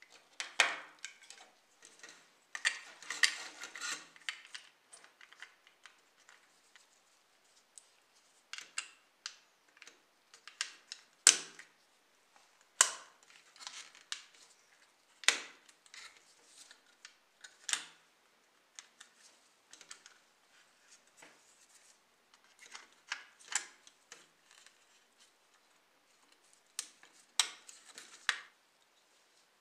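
Small plastic parts of a scale model car being handled and pressed together: scattered sharp clicks and snaps with light rustling, busiest in the first few seconds, then single clicks every second or two.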